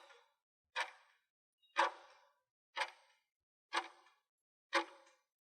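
Clock-tick sound effect counting down, one sharp tick about every second, six ticks in all: a quiz countdown timer running while the viewer thinks of the answer.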